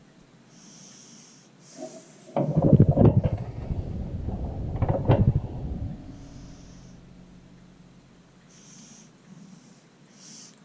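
Handling noise from fitting the plastic-and-metal parts of a Black & Decker Workmate 536: a stretch of knocking and rubbing with two sharper clacks, starting a couple of seconds in and lasting about three and a half seconds, as the pins are pushed into place by hand. Short breaths close to the microphone come before and after it.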